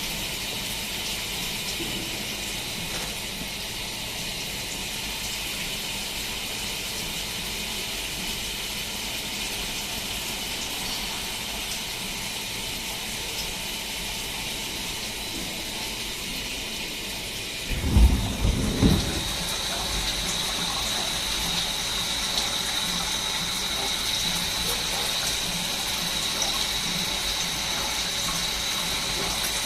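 Swiss-type CNC lathe running, with cutting fluid spraying in a steady hiss. About 18 s in there is a short run of low knocks, after which a steady high whine joins and the machine runs a little louder.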